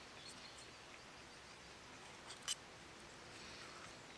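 Quiet outdoor background with a few faint ticks and one sharp short click about two and a half seconds in.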